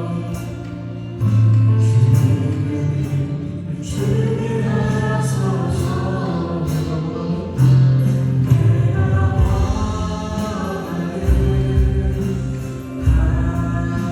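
Worship band playing a praise song: several voices singing together over keyboard, drums and acoustic guitar, with a steady bass line and cymbal strikes.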